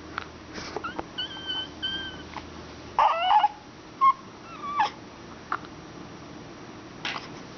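A pet's high-pitched whines and squeaks: two short steady whines about a second in, a louder falling cry about three seconds in, then a few brief squeaks.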